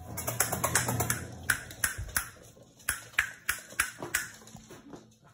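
A French bulldog puppy's claws clicking and skittering on a hard laminate floor as it scampers about: a quick, uneven run of sharp clicks, about three a second, dying away near the end.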